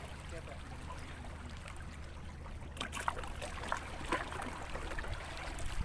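Water trickling and lapping at the shoreline over a steady low rumble, with a few small clicks about three and four seconds in.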